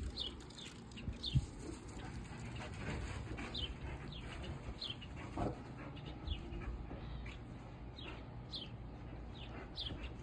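A bird calling over and over, short high chirps that each fall in pitch, about one a second, over a steady low rumble.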